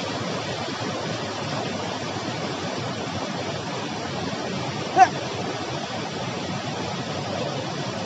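Steady rush of a stream running strong in the rainy season, with one brief sharp squeak about five seconds in.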